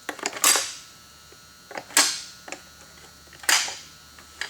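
Sharp clicks and knocks from hands working the air cleaner cover on a Husqvarna 550 XP chainsaw, about five snaps spread a second or so apart.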